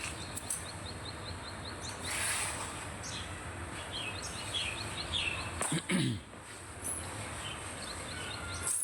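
Bird chirping in quick runs of short, high repeated notes over a steady high hiss of insects, with one brief low falling sound about six seconds in.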